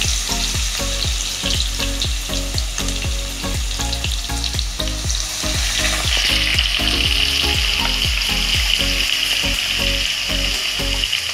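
Garlic, ginger and green chilli paste sizzling as it fries in hot oil with mustard seeds and curry leaves in a kadhai, stirred with a spatula; about halfway through the sizzle settles into a steadier hiss. Background music plays underneath and stops near the end.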